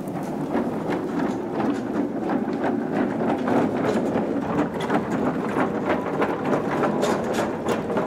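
Hand truck loaded with wooden crates rolling along a hard hallway floor: a steady rumble of the small wheels with a fast, continuous clatter of small rattles.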